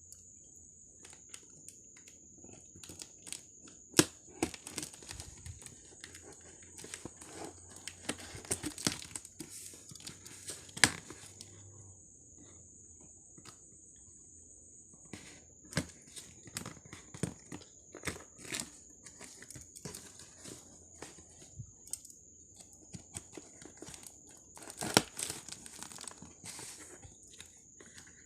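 Packaging crinkling and tearing as it is handled and opened, in irregular crackles with sharp snaps; the loudest come about four, eleven and twenty-five seconds in. A steady high-pitched whine runs underneath.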